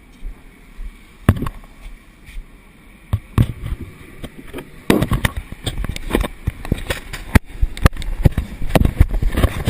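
Irregular knocks, clacks and bumps of a plastic fishing kayak and its gear being handled, sparse at first and coming thick and fast from about halfway through.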